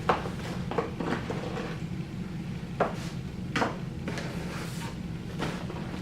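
A cardboard product box and kit parts being handled: about six sharp taps and knocks of cardboard and small parts, spread unevenly, over a steady low hum.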